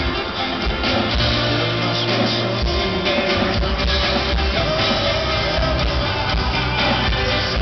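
Live rock band playing: guitar, bass guitar and drum kit, recorded from the arena audience.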